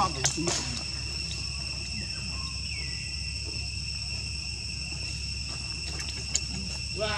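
Steady, high-pitched insect trilling over a low background hum, with a couple of sharp clicks about half a second in.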